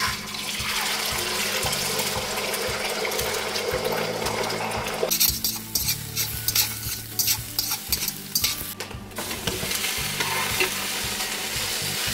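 Beaten egg hitting hot oil in a stainless steel wok, sizzling loudly at once. From about five seconds in, chopsticks scramble the egg with quick clicks and scrapes against the wok, and a steady sizzle returns near the end.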